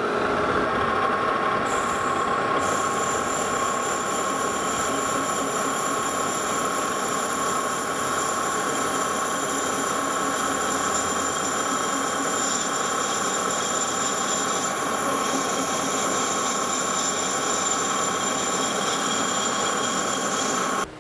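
Metal lathe running as a parting tool cuts into a spinning steam pipe ring, parting it off. The steady cutting noise carries high-pitched whining tones, with a higher whine joining about two seconds in.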